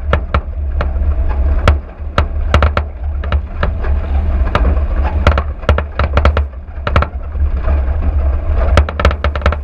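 Car driving over a rough dirt track: a steady low rumble with irregular sharp knocks and rattles, several a second, as the vehicle jolts over ruts and stones.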